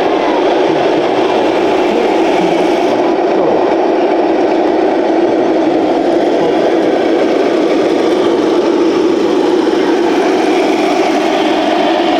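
Engine sound of RC model construction machines, a simulated diesel running steadily with no breaks.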